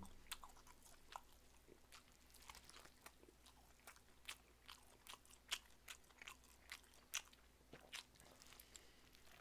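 Faint, irregular wet clicks and smacks of a person chewing and gnawing braised pig's trotter meat off the bone.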